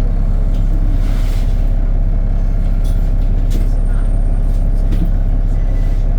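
Bus engine-bay cooling fan and engine running steadily at idle: a constant, loud low drone that does not change, with a few faint ticks over it.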